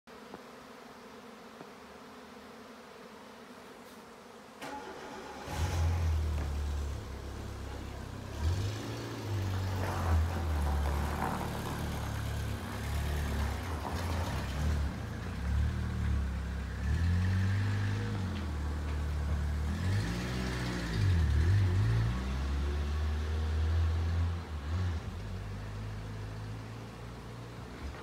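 A motor engine runs close by from about five seconds in, its low drone rising and falling in pitch, and it is the loudest sound. Beneath it, and alone at the start and again as the drone fades near the end, is the steady hum of a swarm of flying insects, taken for honeybees.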